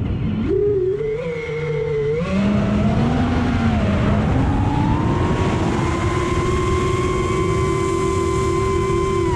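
FPV quadcopter's brushless motors and propellers whining, the pitch dipping and rising with the throttle in the first few seconds, then holding steady, over a rush of air.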